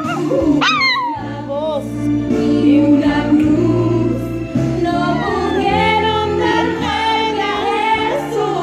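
A Spanish-language Christian song with a singing voice plays steadily. About half a second in, a Shih Tzu puppy gives a short howl that falls sharply in pitch.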